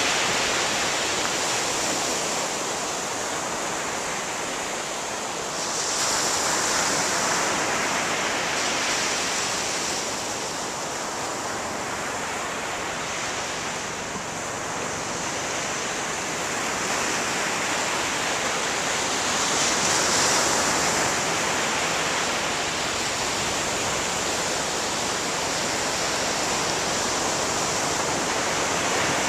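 Sea surf breaking on a sandy beach: a steady wash of waves that swells as each breaker comes in, louder about six seconds in and again around twenty seconds in.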